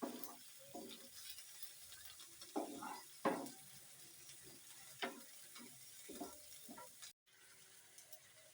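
A spoon stirring corn in a frying pan: irregular scrapes and knocks against the pan over a faint sizzle.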